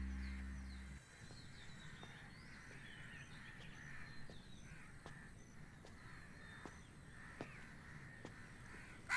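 A guitar music cue fades out in the first second, leaving faint outdoor ambience of birds calling, with crows cawing.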